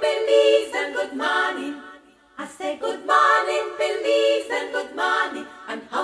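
Background music of unaccompanied a cappella singing, with a short break about two seconds in.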